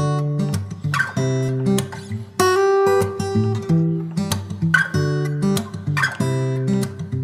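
Background music: acoustic guitar strumming chords, with a new strum or chord change about once a second.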